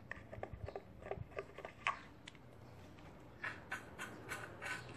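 Faint clicks and scraping of a plastic syringe and tube being worked at a motorcycle engine's intake port to suck out dirty carbon-cleaner residue, with a quick run of rustling strokes in the last second and a half.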